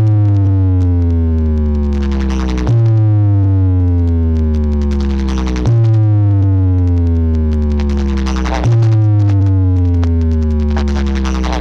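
Electronic dance music: a deep synthesizer bass tone in long notes, each starting abruptly and sliding slowly down in pitch, repeating about every three seconds.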